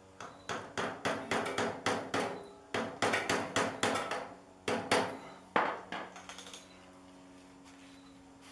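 About twenty sharp metal taps, roughly three a second, as a pointed screwdriver is worked into the old tine-shaft oil seal on a tiller transmission to pry it out. The tapping stops about six and a half seconds in.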